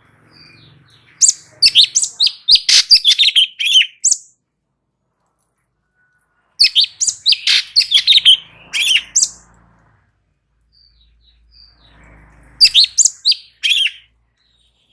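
Cucak cungkok singing in three bursts of quick, loud, high chirping notes, each lasting two to three seconds, with short pauses between them.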